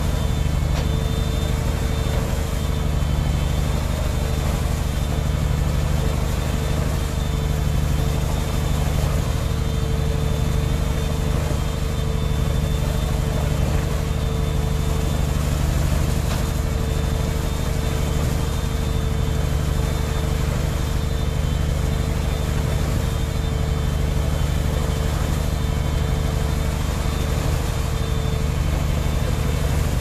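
Shotcrete spraying rig running steadily as it sprays concrete: a constant low engine drone with a steady hiss above it.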